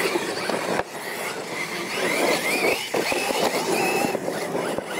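Electric motors of Losi LMT radio-controlled monster trucks whining, the pitch rising and falling with the throttle, over tyres churning through loose dirt.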